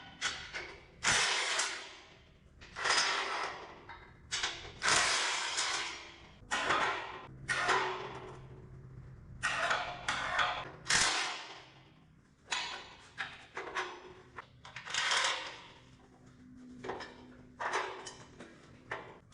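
Irregular series of short metallic scrapes and clanks from steel parts being handled, slid and set against each other on a metal welding table.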